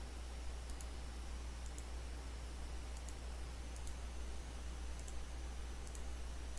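Computer mouse buttons clicking, single or in quick pairs, about once a second, over a steady low hum and faint hiss of the microphone.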